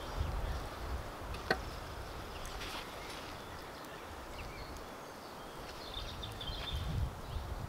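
Split-face concrete blocks being set by hand onto a block course, with a sharp knock of block on block about a second and a half in and a few lighter taps and scrapes after it.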